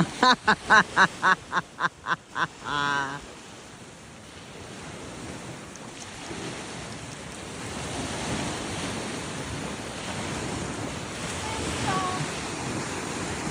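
Small waves washing on a beach, with wind on the microphone. It opens with a rapid string of about a dozen short pitched calls in under three seconds, ending in one longer call.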